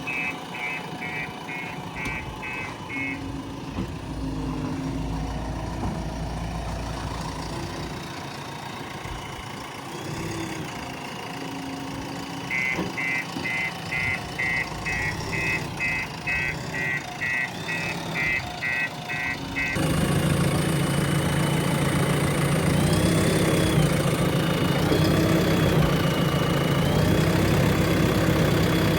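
JCB 3DX Plus backhoe loader's diesel engine running, with its reversing alarm beeping rapidly, about two and a half beeps a second, at the start and again for about seven seconds midway. About twenty seconds in the engine grows louder and stays louder.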